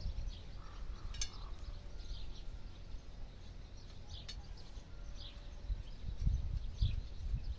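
Small birds chirping repeatedly, with two light metallic clinks, about a second in and after about four seconds, as the steel rod sections of a camping tripod are handled and joined. A low rumble underlies it and grows louder near the end.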